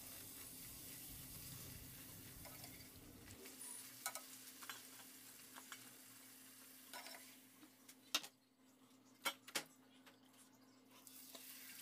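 Faint sizzling of hot oil as a large puri deep-fries in a pan, the hiss thinning out about three seconds in, with a few light clicks scattered through.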